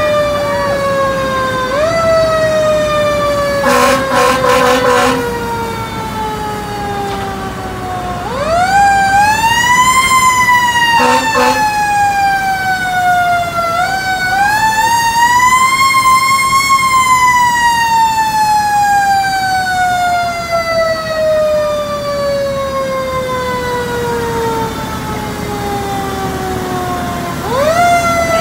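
Mechanical siren winding up and coasting down: the pitch climbs quickly, then sinks slowly, then winds up again about nine, fourteen and twenty-seven seconds in, with one long fall of about ten seconds. Horn blasts cut in, about a second long at four seconds in and briefly around eleven seconds.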